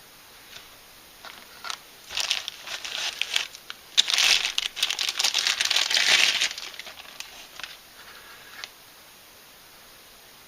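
Packaging crinkling and rustling as it is handled and pulled open, in a dense run of a few seconds, followed by a few light clicks and taps.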